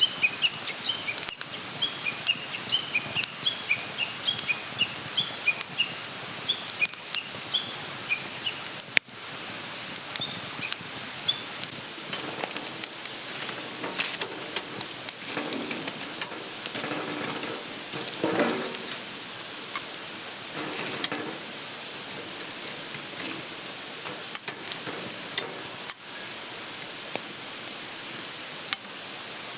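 Wood campfire crackling, with frequent sharp pops over a steady hiss. A run of short high chirps sounds through the first several seconds, and the noise swells louder for a stretch in the middle.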